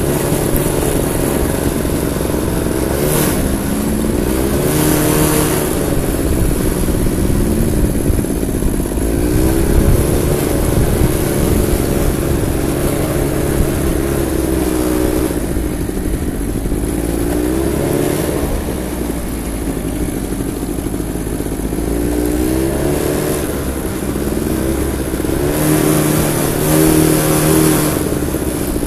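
Quad bike (ATV) engines running, the engine pitch rising and falling again and again as the throttle is opened and eased off, over a steady rumble.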